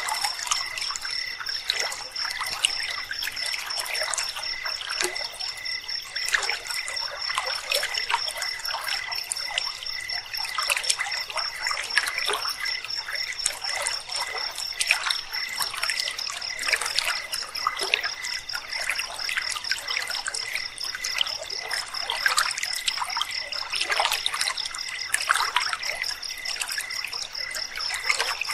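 River water trickling and babbling over stones, with a steady, fast-pulsing high trill of night insects running over it.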